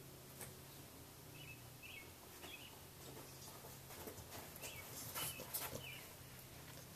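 Faint short high chirps repeating every half second to a second over a steady low hum. Sharp clicks and scuffs come about four to six seconds in, loudest near the end, as a French bulldog puppy moves up close to the phone.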